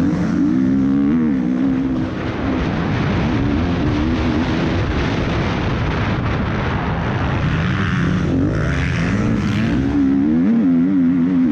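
MX2-class motocross bike's engine racing on a dirt track, heard from the rider's helmet camera: its pitch rises and falls again and again as the rider opens and closes the throttle through the corners and straights, with wind rushing over the microphone.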